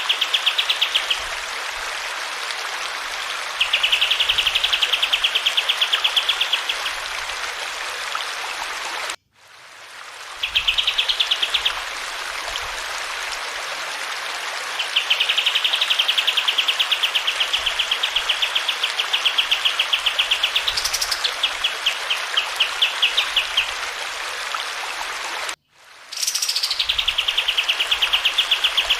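Olive-winged bulbul (kapas tembak) singing long runs of fast, rattling trills over steady flowing water, with one phrase a little past twenty seconds in that sweeps sharply up and back down. The sound cuts to silence for a moment twice, about nine seconds in and near the end.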